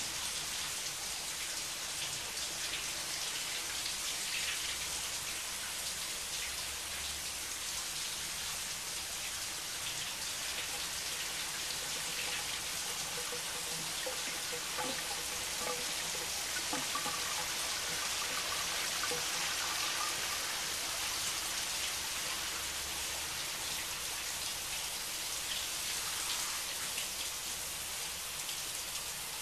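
Shower spray running steadily, an even hiss of falling water.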